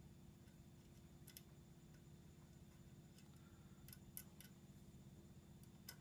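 Near silence with a steady low room hum, broken by a handful of faint, sharp clicks from small parts being handled: the SSD and its tiny standoff screws.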